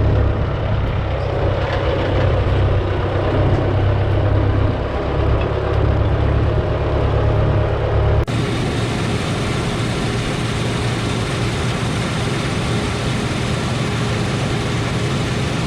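Combine harvester running steadily: a deep engine drone with machinery noise over it. The sound changes abruptly about eight seconds in to a slightly quieter steady drone.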